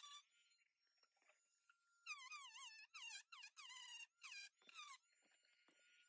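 Cordless rotary tool with a pink grinding stone, faintly whining at high speed while grinding at copper rivets on a leather-covered bag frame. In several stretches after about two seconds its pitch wavers and dips as the stone loads up. Between them a thin steady whine remains, with the leather gumming up the grinder.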